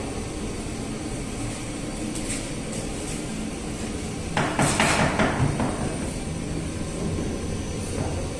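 A quick burst of rapid knocking and rattling about four and a half seconds in, from crisp flatbreads handled on a metal wire-mesh bread rack, over a steady low rumble.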